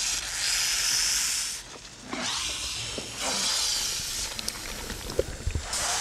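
Snake-pit sound effect: several loud hissing bursts, each about a second long, over a wet squelching and slithering made by hands squishing macaroni and cheese, standing in for many snakes sliding over each other.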